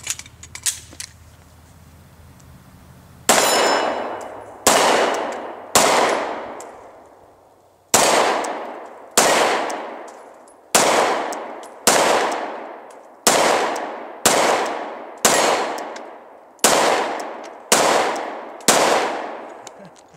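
Glock 19 Gen 4 9mm pistol being fired at a slow, steady pace: a dozen or so shots about a second apart, each followed by a long echo. A few light clicks come in the first second as the pistol is readied.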